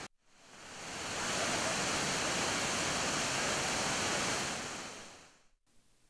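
Steady rush of falling water from a waterfall about 40 metres high. It fades in over the first second and fades out again near the end.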